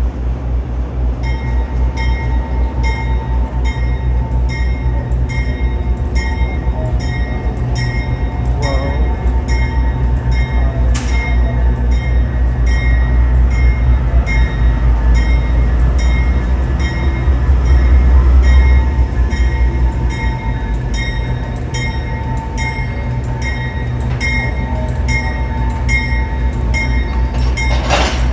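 Diesel passenger locomotive backing down slowly, its engine rumbling louder as it comes closest about two-thirds of the way through, then easing. Its bell rings steadily, about two strokes a second, as it moves through the station.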